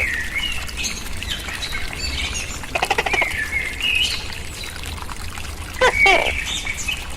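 Songbirds chirping and whistling, with a quick rattling call about three seconds in and a loud falling call near six seconds.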